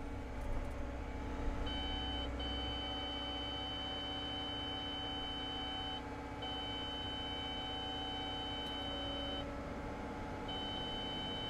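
Cat 315 excavator's grade-control audio alert sounding in the cab: a steady high beep tone starting about two seconds in and breaking off briefly three times, the signal that the bucket is at the set target depth. The excavator's engine runs steadily underneath.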